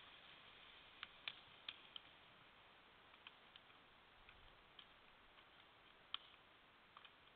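Near silence: the faint steady hiss of a trail camera's microphone, with a scattering of faint, sharp, irregular ticks, the clearest a little after one second in and again about six seconds in.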